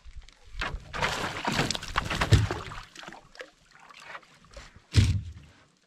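Water splashing and sloshing at the side of a canoe as a hooked fish is grabbed at by hand, loudest about two seconds in, then a single loud thump about five seconds in.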